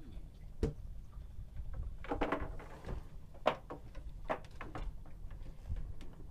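A few sharp knocks and clicks of gear handled aboard a small wooden fishing boat, over a low steady rumble.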